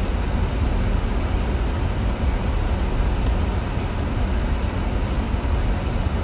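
Steady low road and engine rumble inside a moving car's cabin, with one faint click about three seconds in.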